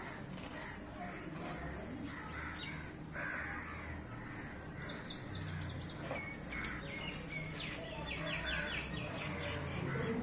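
Crows cawing and other birds chirping, with quick runs of short calls about five seconds in and again later. Under them is intermittent scratchy tearing as a beagle chews and rips the fibrous husk of a coconut.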